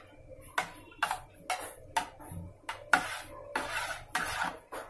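Metal spoon stirring thin seasoned yogurt in a metal baking pan, clinking and scraping against the pan's bottom and sides in repeated strokes, about two a second.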